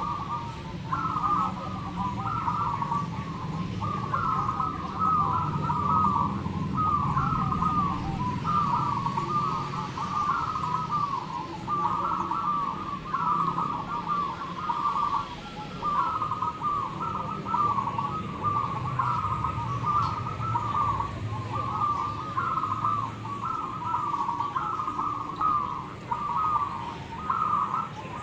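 Zebra doves (perkutut) cooing: quick staccato phrases that repeat about once a second and run on without a break, as from several birds at once, over a low steady background rumble.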